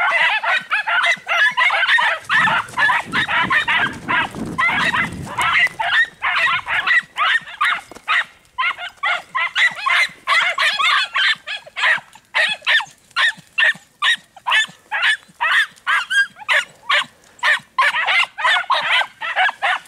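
Andalusian podenco hounds yelping in quick, high-pitched, continuous cries, two or three a second, giving tongue on a rabbit's scent trail. A low rushing noise runs underneath for a few seconds about two seconds in.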